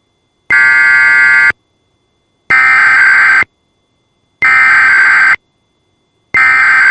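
Emergency Alert System SAME header: about one-second bursts of high, warbling digital data tones, repeated four times roughly two seconds apart, encoding the alert that a Required Weekly Test follows.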